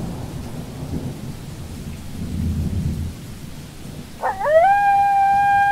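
Thunder rumbling, then, about four seconds in, a long howl that sweeps up and holds one steady pitch.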